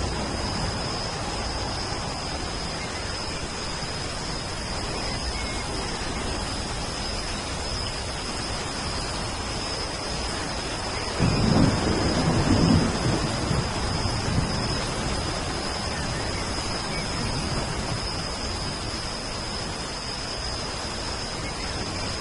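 Steady rain falling, with a roll of thunder lasting about three seconds around halfway through. A steady high-pitched whine runs underneath.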